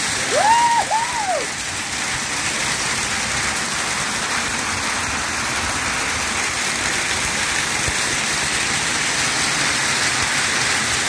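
Small hail (snow pellets) falling steadily on the forest floor and the shelter overhead, a dense even hiss. A voice calls out twice, briefly, about half a second in.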